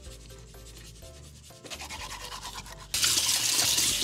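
A hand scrubbing salt over a fresh largemouth bass's slimy skin in a stainless steel sink, a soft rubbing. About three seconds in the tap comes on and water splashes loudly into the sink over the fish, rinsing it.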